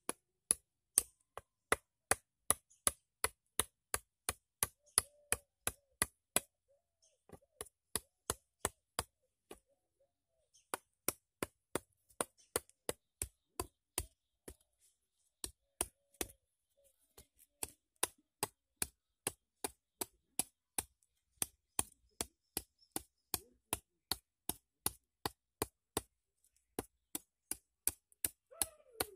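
Hand-held sharp stone flake chopping into a green wooden stick, cutting a notch through its bark. The sharp strikes come about three a second in steady runs, with brief pauses now and then.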